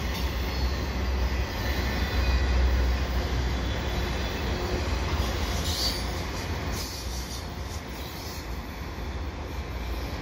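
Autorack freight cars of a fast freight train rolling past: a steady rumble of steel wheels on the rails, with brief faint wheel squeals. The rumble eases off a little after about seven seconds.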